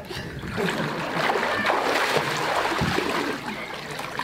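Water splashing and sloshing in a baptism pool as a person is lowered backwards under the water and lifted out again, loudest about a second in and dying down near the end.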